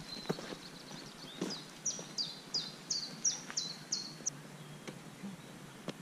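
A songbird calling a quick run of about seven repeated high notes, each dropping in pitch, from about two seconds in. Under it are a few faint footstep crunches on a gravel track.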